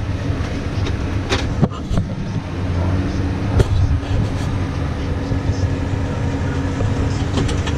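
Tractor running with a Claas Uniwrap round baler-wrapper working behind it, a steady low mechanical drone. A few sharp clicks or knocks sound over it, the loudest about three and a half seconds in.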